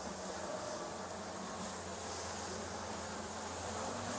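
Boat engine running steadily at speed, a continuous buzzing drone with rushing wind and water noise over it.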